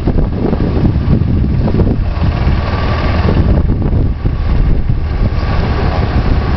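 Wind buffeting the microphone: a loud, gusting rumble that covers the sound of the seafront.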